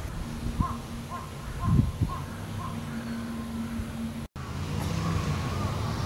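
Cicadas singing: a short mid-pitched note repeated about every half second, then a thicker overlapping chorus of the same notes after a brief dropout about four seconds in. Low wind rumble on the microphone underneath, with a thump about two seconds in.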